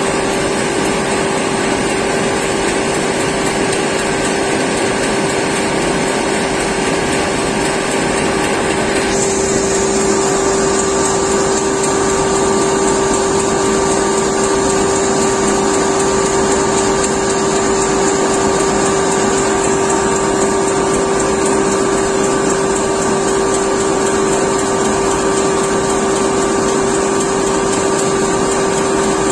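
Laser cutter's fume-extraction ventilation fan running steadily, a loud rushing hiss with a steady hum, while the machine engraves plywood. About nine seconds in, the upper hiss changes and a thin high whine comes in over it.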